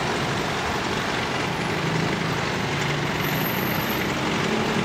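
Steady street traffic noise: passing and idling vehicle engines with a low drone underneath.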